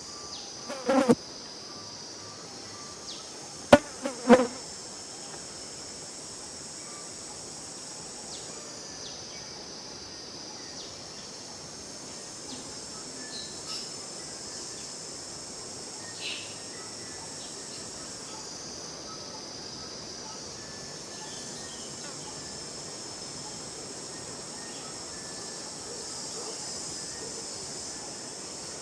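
A steady, high-pitched insect chorus that swells and fades throughout, with a few sharp, loud clicks or knocks about one second and four seconds in.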